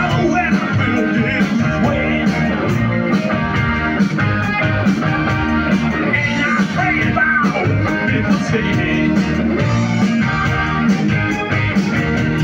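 Live rock band playing, with electric guitars, bass and drums, recorded from the crowd at a loud, steady level.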